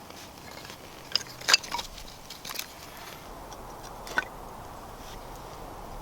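Pine kindling being laid on a newly lit campfire: a few sharp snaps and knocks of the sticks, the loudest about a second and a half in.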